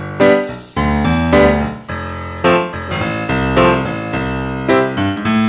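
Background instrumental music, a melody of notes struck about twice a second.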